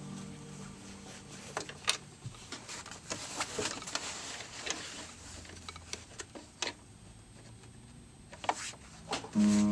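Scattered small clicks and light handling noise as a presser foot is fitted onto a sewing machine's presser bar and fabric is slid under it.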